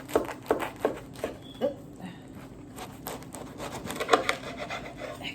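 Knife sawing through a crusty sub roll: a few sharp crunching strokes about 0.4 s apart, then a denser run of crackling about three seconds in.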